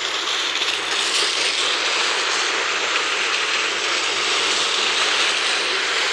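Heavy rain falling in a steady downpour, a loud, even hiss with no let-up.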